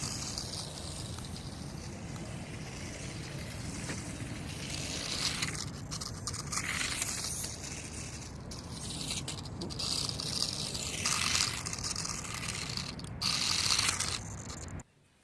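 Small toy-grade RC off-road car driving over rough ground: tyres scraping and rustling, with the electric drive motor's whine swelling and falling several times as it speeds up and slows. The sound cuts off suddenly near the end.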